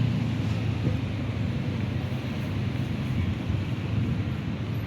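Steady low engine rumble with wind noise on the microphone.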